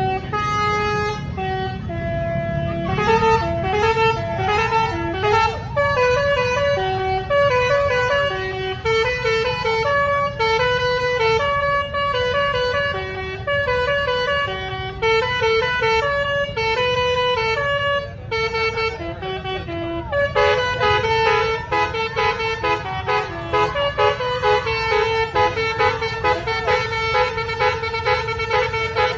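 Telolet basuri musical horn on a child's battery-powered ride-on car playing a melody of held notes that step up and down without pause. About twenty seconds in, the notes thicken into a fuller sound.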